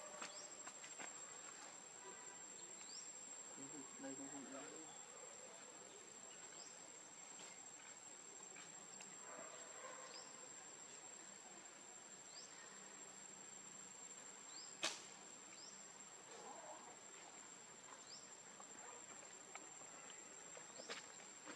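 Faint, steady, high-pitched insect drone, with a few faint short rising chirps and a single sharp click about fifteen seconds in.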